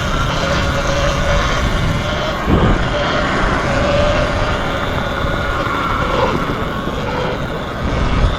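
Sur-Ron electric dirt bike's motor whining steadily at one pitch, under heavy wind rumble on the microphone while riding, with a brief louder gust about two and a half seconds in.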